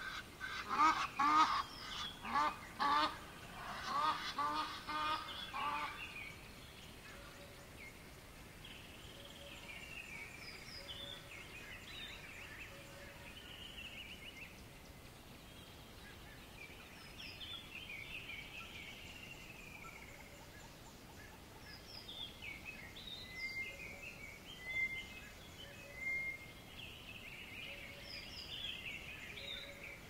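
Geese honking in a rapid, loud series for the first six seconds or so, then small birds calling and singing at intervals over a faint steady hiss.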